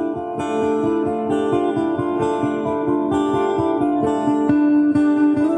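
Music led by guitar, with held notes over a steady rhythmic pulse.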